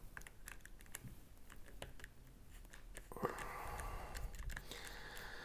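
Faint small clicks of a screwdriver and bit being handled and turned in the screws of a folding knife. About three seconds in, a faint steady hiss comes up.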